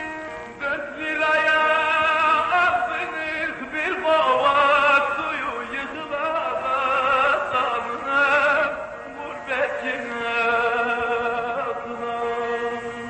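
Music: a voice singing long held notes with a wide, wavering vibrato over instrumental accompaniment, in several phrases.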